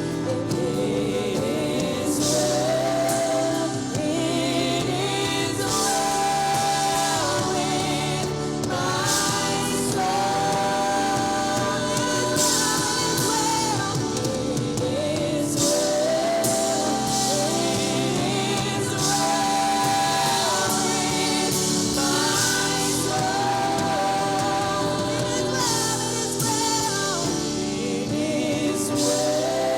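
A group of voices singing a gospel song, with musical accompaniment.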